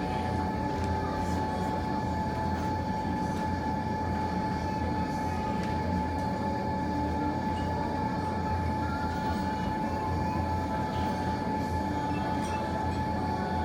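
Steady low mechanical hum with a constant thin whine running through it, and a few faint crackles from the wood fire.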